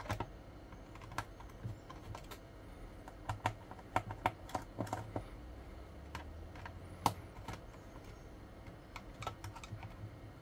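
Irregular clicks, taps and knocks of hands and a small tool working at a meter's case, trying to free a tightly stuck plug-in power supply module from its compartment. The loudest knock comes about seven seconds in.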